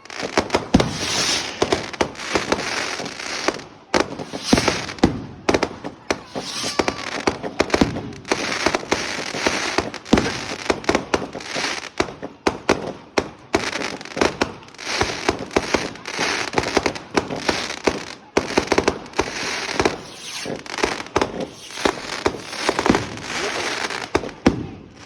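Fireworks going off continuously: a rapid barrage of sharp bangs and crackles with hissing, without a break until it stops near the end.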